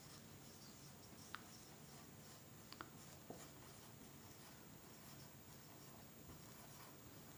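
Near silence: room tone, with three faint short clicks in the first few seconds.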